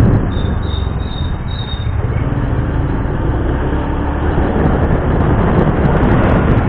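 Motor scooter on the move: a steady low rumble of the engine and wind buffeting the action camera's microphone.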